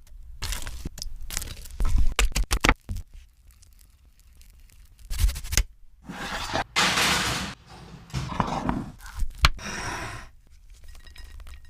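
Food-handling sounds: a quick run of sharp clicks and knocks, then after a pause two longer rustling, scraping stretches.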